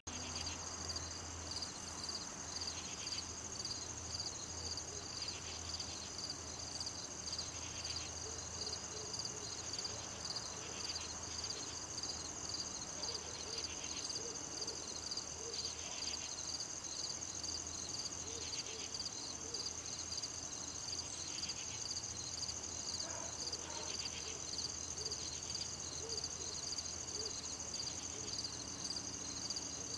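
Steady chorus of crickets and other insects: a continuous high trill with a fast pulsing layer just below it, and a lower buzz that comes in every two to three seconds.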